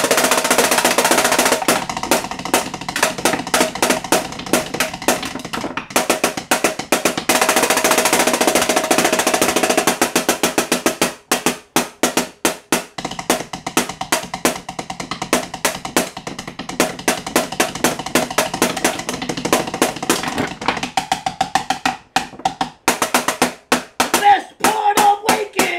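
Fast drumming with wooden drumsticks: rapid rolls and fills on a drum, with brief pauses about halfway through and again near the end.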